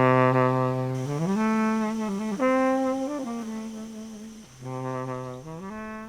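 A single brass-like wind instrument playing a slow melody: a long low note, a slide up into a few higher held notes, then the same phrase starting again about four and a half seconds in.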